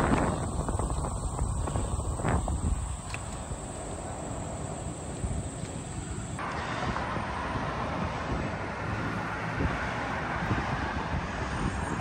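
Wind buffeting the microphone during a bicycle ride, with a few light knocks. About six seconds in it cuts to a steady rush of road traffic.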